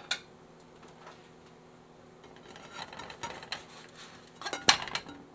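A china plate clicks down on the stovetop, then a silicone spatula scrapes under a pancake in a nonstick skillet, and a few sharp knocks of kitchenware on the pan or stove follow near the end.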